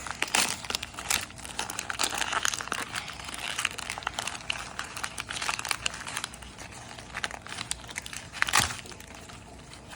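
A fidget cube's packaging being unwrapped by hand: irregular crinkling and tearing throughout, with one sharper snap near the end.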